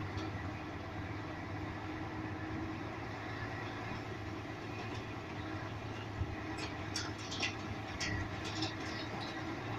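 Car engine running at low speed, heard from inside the cabin while the car creeps through a rail shuttle wagon. A few light clicks and rattles come about six to nine seconds in.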